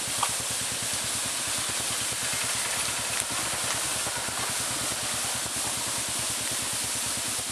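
Motorcycle engines chugging at low revs, a fast even low pulsing, under a constant rushing hiss of water running over the rocky trail.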